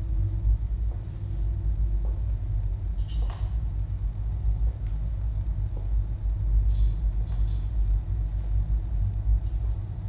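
Steady low rumble, with a few faint clicks and short hissing bursts about three seconds in and again around seven seconds in.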